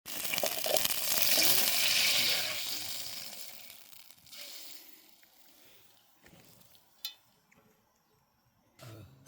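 Water hitting the hot frying pan of a Trangia camp stove, sizzling loudly at first and dying away over about four seconds, as the water is set to simmer off the fried-sausage residue.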